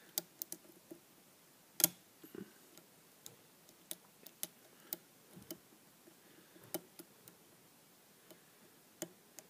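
Hook pick and tension wrench working the pins of a spool-pinned pin-tumbler lock cylinder: irregular light metallic ticks, with sharper clicks about two seconds in, near seven seconds and near nine seconds. These are the clicks of pins setting and dropping as the core counter-rotates under light tension.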